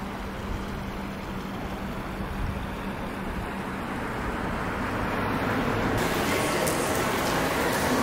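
Steady outdoor city ambience, a low rumble of traffic with a faint hum. About six seconds in, a brighter hissing noise comes in.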